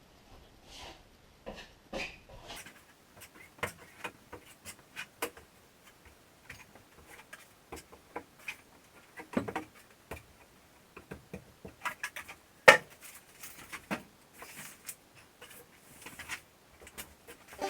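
Hand tools at work on drywall joint compound: irregular clicks, knocks and short scrapes, as a drywall knife and mud pan are handled and mud is worked onto the wall. The sharpest knock comes about two-thirds of the way through.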